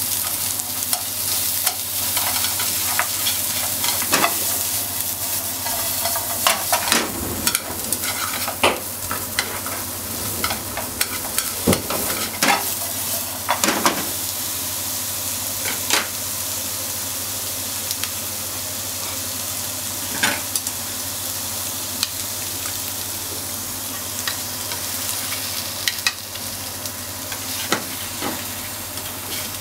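Sausage slices and onion sizzling in a hot nonstick frying pan. Wooden chopsticks stir them, clicking and scraping against the pan. Near the end, beaten egg is being stirred in with the frying.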